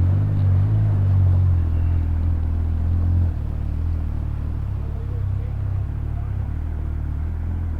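Polaris RZR side-by-side's engine running with a steady low drone, easing a little in level about three seconds in.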